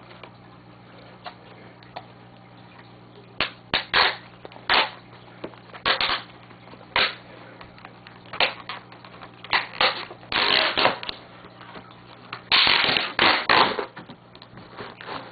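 Packaging being pulled and worked open by hand: irregular clicks and knocks, with two longer rustling, scraping stretches, one about ten seconds in and one about thirteen seconds in.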